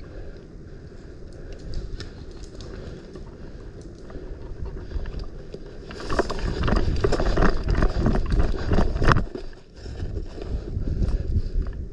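Footsteps and rustling gear of a player on the move, with wind buffeting the microphone, louder and busier from about six to nine seconds in.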